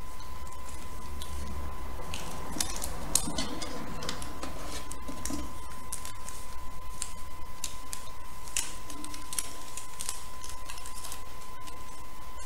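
Scattered light clicks and rustling from hands handling fabric and parts at a sewing machine, over a steady low hum and a faint steady high tone.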